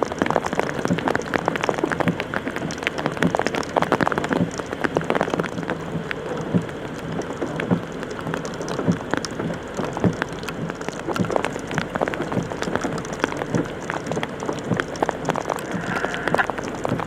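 Heavy rain falling, with many sharp drop hits on a surface close to the microphone.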